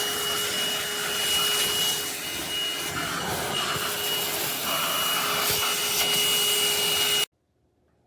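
Bissell Pet Hair Eraser cordless lithium-ion hand vacuum running, going back over the spot to pick up stubborn pet hair. The motor gives a steady whine over the rush of suction. The sound cuts off abruptly about seven seconds in.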